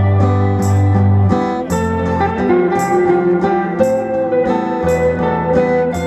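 Live band playing an instrumental passage: electric and acoustic guitars, bass and a drum kit with a cymbal stroke about once a second, under a melody held on long notes by a wind instrument.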